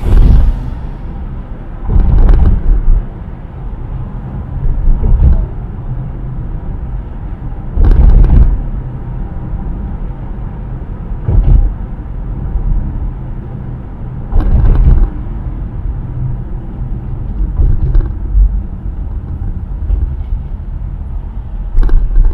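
Steady low road and tyre rumble of a car driving at speed, heard from inside the cabin, with louder swells every few seconds.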